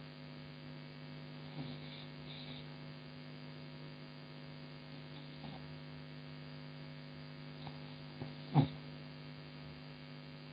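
A steady electrical hum in the recording, a low tone with another just above it. A few faint short sounds come over it, and one brief louder sound comes about eight and a half seconds in.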